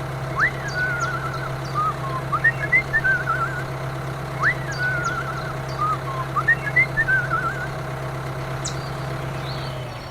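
Steady engine hum with a whistled figure laid over it: a quick rising whistle followed by warbling trills, played twice about four seconds apart in exactly the same way. The hum stops near the end.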